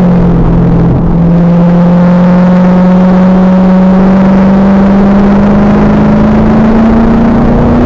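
2000 Pontiac Trans Am Firehawk's stock LS1 V8 with SLP exhaust under hard acceleration on track. The note dips briefly about a second in at a gear change, then climbs slowly as it pulls. The recording is loud and distorted.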